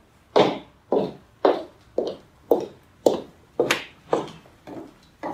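Footsteps on a hard floor, about two steps a second, each step a sharp knock that rings briefly in the room.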